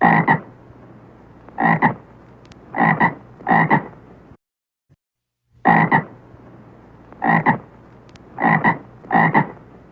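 Frog croaking: two runs of four short, rasping croaks each, with a brief pause between the runs.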